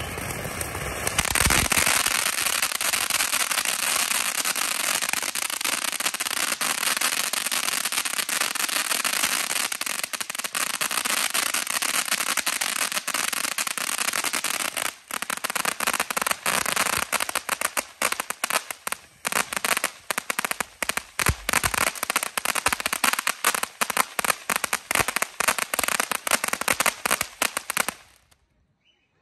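Happy Family Military Tank fountain firework spraying sparks with a dense crackling hiss that gets louder about a second and a half in. In the second half it breaks up into rapid separate crackles, then cuts off suddenly near the end.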